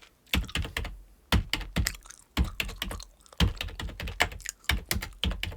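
Typing on a computer keyboard: irregular runs of clicking keystrokes with short pauses between them, as a phone number is keyed in.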